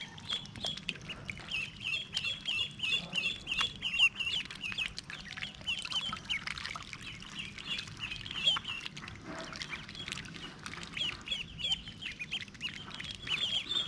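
Ducklings peeping, a rapid run of short high peeps that thins out for a while midway, with small splashes and wet clicks as they dabble and paddle in shallow water.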